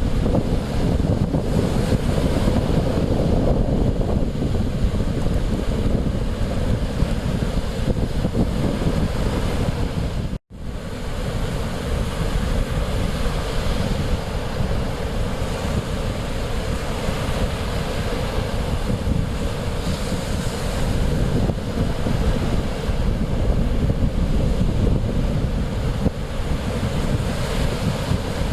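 Mediterranean Sea waves washing on the shore, with wind buffeting the microphone. The sound cuts out for a split second about ten seconds in.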